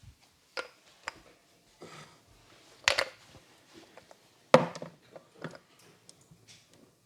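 Percussive strokes of a hands-on head massage: irregular sharp slaps and pops of hands on the head and neck, a few soft and several loud, the loudest about halfway through.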